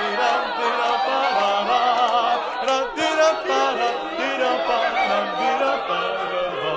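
A group of adult voices singing a cappella, many overlapping lines of wordless improvised melody on syllables like "la" and "lie", with held notes near the end.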